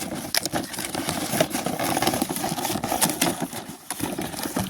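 Cardboard toy packaging being handled and pulled open: irregular rustling with many small taps and knocks.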